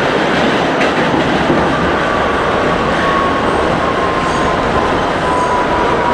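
NYC subway train heard from aboard, running through a tunnel into a station: a loud, steady rumble of wheels on rail, with a faint whine slowly falling in pitch.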